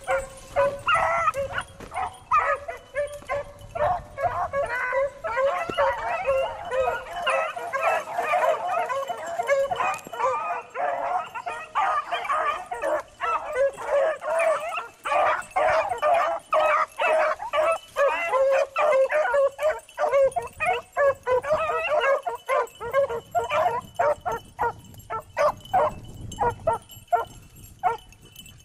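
A pack of beagles baying on a rabbit's track, many dogs' voices overlapping in a dense, continuous chorus of short calls. The chorus thins to scattered single calls in the last several seconds.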